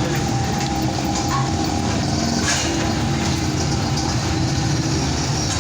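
Motor vehicle engine running steadily, a low rumble with no change in pitch.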